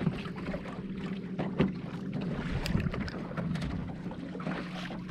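Electric trolling motor humming steadily as it holds the boat, with wind on the microphone and light knocks from tackle and water against the hull.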